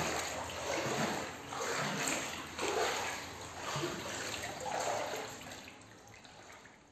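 Floodwater of rain and sewage sloshing and splashing across a house floor, in uneven swells that fade out near the end.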